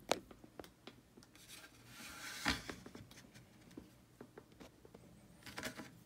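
Handling noise of a lock cylinder and gear on a rubber work mat: a sharp click at the start, scattered light clicks and taps, a rubbing scrape about two and a half seconds in, and a short flurry of rubs near the end.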